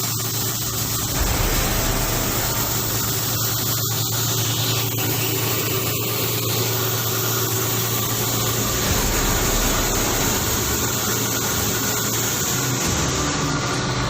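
Chilli powder mixer machine running: a steady motor hum and whir that holds even throughout.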